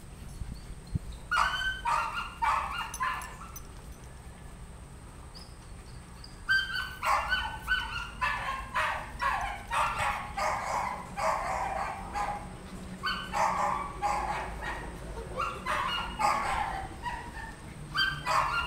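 Puppies yipping and barking in quick runs of short, high-pitched calls during rough play, a short burst early on, then a quieter few seconds, then near-continuous yips for most of the rest.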